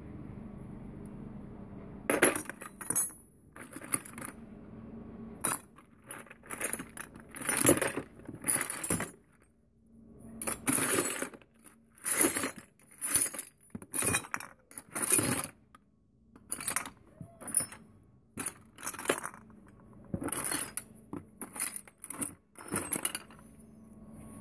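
A pile of loose steel screws, bolts and old hand tools clinking and rattling as a hand rummages through them in a plastic crate. The clatter comes in short, irregular jangling bursts from about two seconds in.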